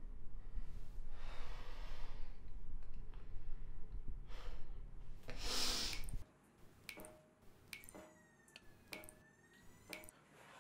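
A woman breathing heavily, two long breaths over a low hum. After a sudden cut, a kitchen tap drips into a stainless-steel sink about once a second.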